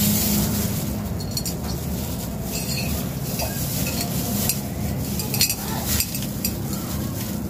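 Several light clinks and rustles as a glass culture bottle is handled in plastic-gloved hands, over a steady low hum.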